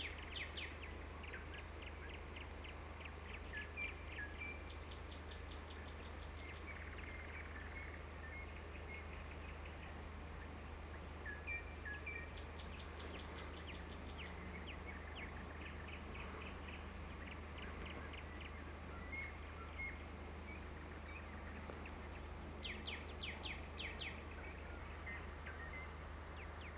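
Wild birds singing: several rapid trills of quick ticking notes and scattered short chirps, over a steady low hum.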